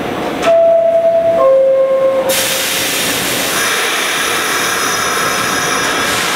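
R46 subway car's door-closing chime, two descending tones, followed by a loud hiss of compressed air lasting about four seconds.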